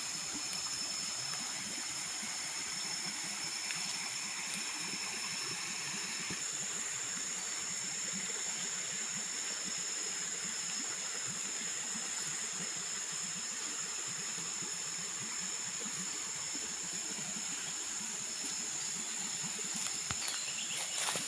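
Forest ambience of an insect chorus: a continuous high-pitched shrill drone over a steady hiss, unbroken throughout.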